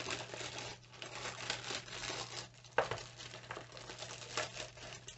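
Packaging crinkling and rustling as a sewing machine's foot pedal is handled and unwrapped, with one sharper knock a little under three seconds in.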